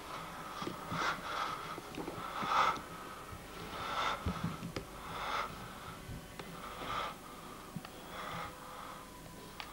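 A person's breath puffing noisily close to the microphone, in about eight short, irregular bursts roughly a second apart.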